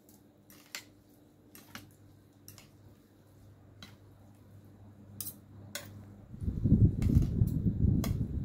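Metal fork and spoon clinking as they toss noodle salad on a plate, a sharp clink every second or so. About six seconds in, a loud low rustling rumble takes over.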